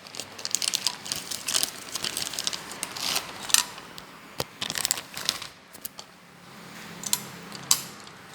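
Packaging of a boxed door lock being handled and opened: irregular rustling with scattered sharp clicks and taps.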